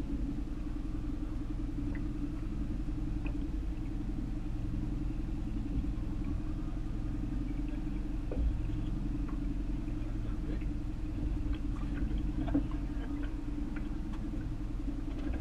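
Fishing boat's engine running steadily at low speed, a continuous low rumble, with faint voices now and then.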